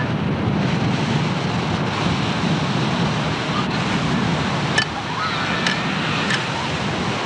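Ocean surf breaking and washing in the shallows, with wind rumbling on the microphone. A few sharp faint clicks come in the second half.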